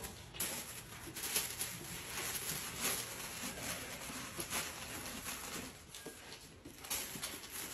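White paper wrapping crinkling and tearing as it is pulled off a rolled poster, in irregular rustles about once a second, with a quieter stretch around six seconds in.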